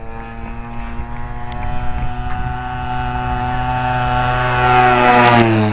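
Giant-scale RC Piper Cub's converted chainsaw engine, a two-stroke, running at flying speed on a low pass. It grows steadily louder as the plane approaches, then drops sharply in pitch as it passes overhead near the end.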